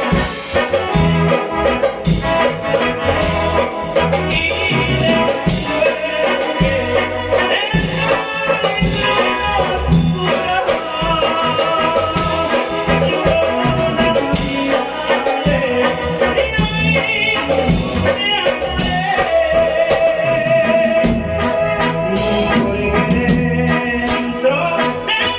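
Mexican Tierra Caliente band music: an instrumental passage with a steady drum beat under a melody line with vibrato.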